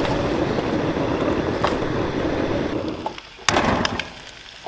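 Stovetop coffee percolator bubbling and perking in a steady gurgle for about three seconds. Then an egg is cracked into a hot frying pan: a short loud sizzle as it hits the fat, settling to light crackling.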